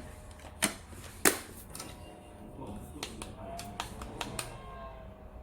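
Clicks and knocks of a plastic camping lantern fan being handled: two sharp loud clicks about half a second and a second in, then lighter taps.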